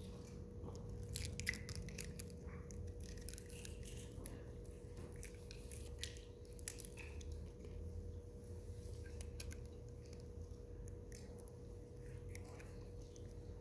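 Quiet handling noise: scattered small clicks, crackles and rustles over a steady low hum, with a couple of louder clicks a little over a second in.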